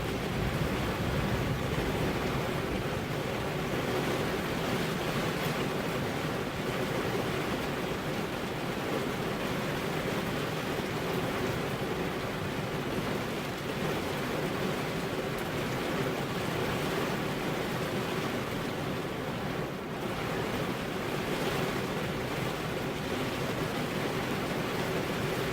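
Steady rainfall, a continuous even hiss with no distinct drops or claps standing out.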